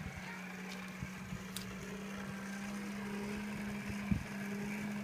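Steady low mechanical hum with a few faint knocks, one sharper knock about four seconds in.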